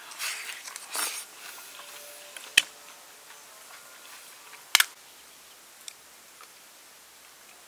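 Close eating sounds of a raw oyster taken from its half shell during the first second and a half, then two sharp clicks, one about two and a half seconds in and a doubled one just before five seconds.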